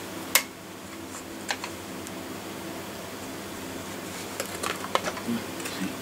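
Batteries and the battery box of an old Justrite miner's lamp being handled as the batteries are fitted: a sharp click about a third of a second in, a couple of small clicks, then a cluster of light clicks and taps near the end. A steady low hum runs underneath.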